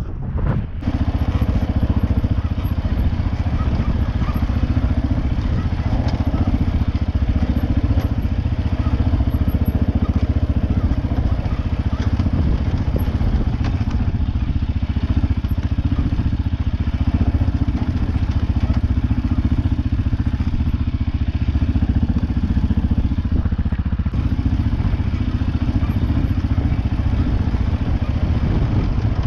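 CFMoto 520S ATV's single-cylinder engine running steadily while riding over a rocky trail, with a little clatter from the stones and the machine.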